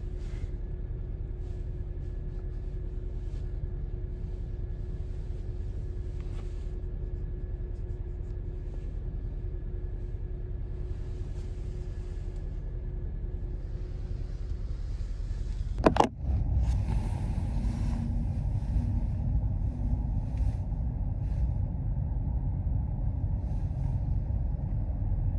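Steady low rumble of a car on the move, with a sharp click about two-thirds of the way through, after which the rumble is louder.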